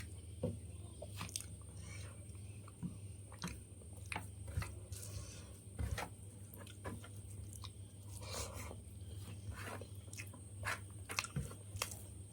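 A person chewing and eating a mouthful of rice and fish, with many small wet mouth clicks at an irregular pace over a steady low hum.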